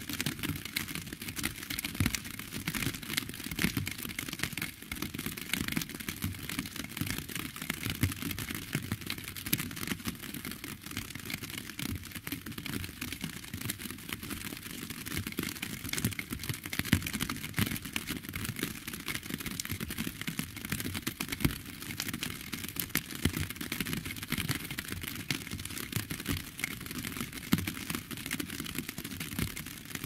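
Steady rain, a dense patter of countless small drop impacts.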